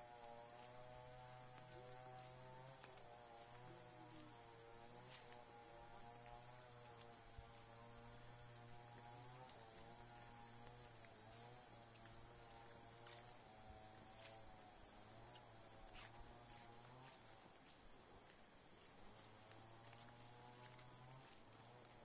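Faint forest ambience: a steady high-pitched insect drone with a low, wavering hum beneath it and a few faint ticks.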